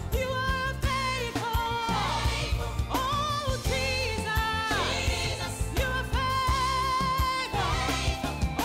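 Background gospel song with a sung lead vocal over a steady bass.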